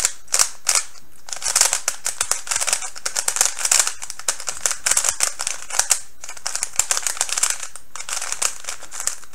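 MoYu Weilong v2 mini 3x3 speedcube being turned quickly by hand: rapid clicking and clacking of its plastic layers, in flurries with brief pauses. The cube is turning fluidly, though still a little tight when new.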